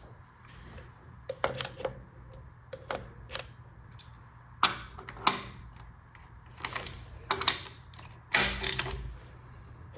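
Irregular metallic clicks and clanks from hand tools and parts being handled while a Ford 5.0 V8's top end is taken apart, in several short clusters over a steady low hum.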